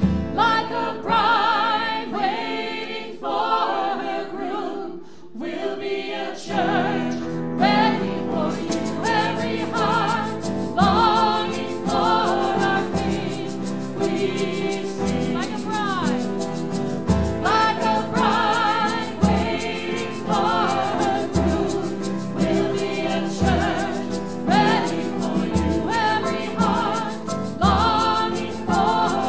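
Worship song sung by a small group of singers over band accompaniment; the accompaniment fills out with a steady low beat about six seconds in.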